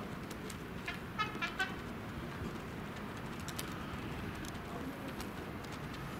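Steady, distant hum of city traffic heard from high above. About a second in comes a short run of four or five quick high chirps.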